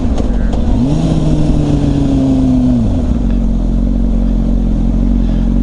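Motorcycle engine on the move: its note climbs about a second in, holds, then falls about three seconds in and settles to a steady lower pitch.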